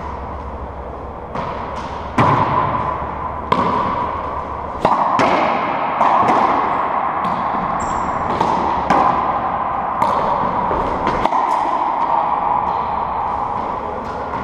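Racquetball rally: the hollow rubber ball cracking off racquets, the court walls and the floor, a dozen or so sharp strikes at irregular intervals, each ringing on in the enclosed court's echo.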